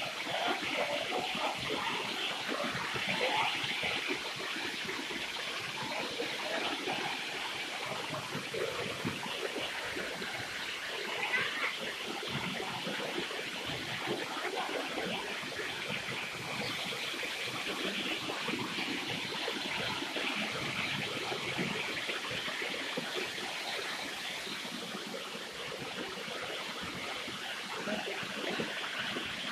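Steady rushing of a stream and waterfall: an unbroken wash of water.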